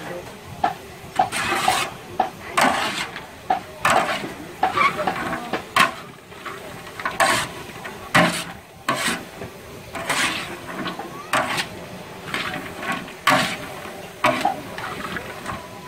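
A cooking utensil scraping and knocking against cookware in irregular strokes, about one every half second to a second, as food is stirred.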